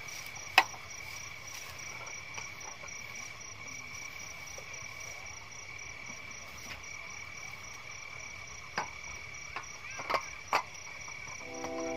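Night insects, crickets, chirping steadily in two high pitches. Over them come sharp clicks and knocks of folding camp furniture being handled: one loud click about half a second in, and several more about three-quarters of the way through as a wooden folding table is set up. Guitar music begins just at the end.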